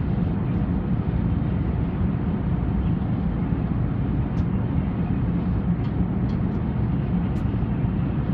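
Steady, even low rumble of a moving vehicle heard from inside, with a few faint ticks over it.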